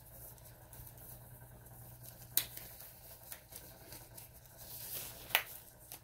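Faint steady low hum of a small cup-turner motor turning an epoxy-coated tumbler, with two sharp clicks about three seconds apart.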